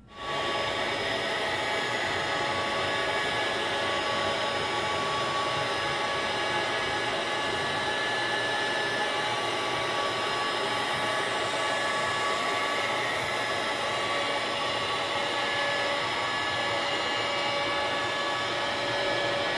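Router spindle on a small 3040 CNC machine running at high speed while milling birch plywood: a steady high whine over dense rushing noise. It begins and ends abruptly.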